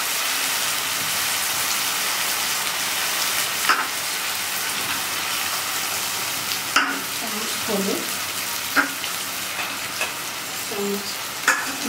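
Onion paste and ginger frying in oil in a nonstick kadai, a steady sizzle, with a wooden spatula knocking against the pan four times.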